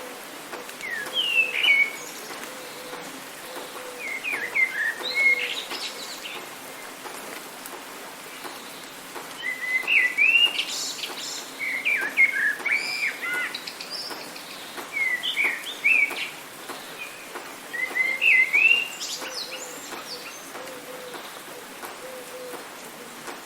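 Songbirds sing in short bursts of quick chirping phrases, several times through the stretch, over a steady hiss of rain. A faint low note repeats in the background.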